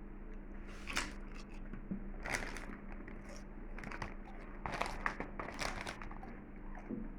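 Crisp potato chips and their bag crinkling and crunching in about five short crackly bursts, over a faint steady hum.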